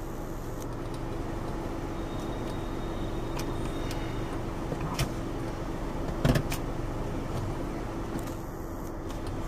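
Plastic clicks and knocks of a smartphone being handled and pressed into a rear-view-mirror phone holder's spring clamp: a sharp click about five seconds in and a louder couple of knocks about a second later. A steady hum runs beneath it in the car cabin.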